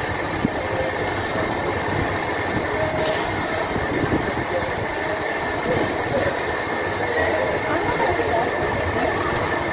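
Restaurant background din: a steady rumble with indistinct chatter from other diners.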